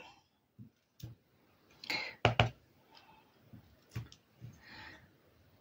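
Rubber stamp mounted on a wooden block being set down and pressed onto paper over a cutting mat: a few short knocks and clicks with faint paper rustle. The loudest is a quick double knock about two and a half seconds in.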